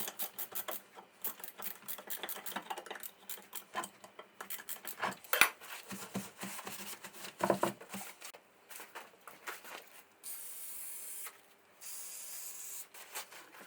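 Hand work on cast-iron bench vice parts: irregular light clicks and taps of metal being handled, two louder knocks in the middle, then two steady hissing strokes of about a second each near the end, like abrasive rubbing on metal.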